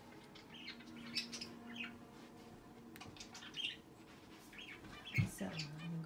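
Pet birds, cockatiels among them, chirping in short, scattered high calls. Near the end a low knock is followed by a brief low hum of a person's voice.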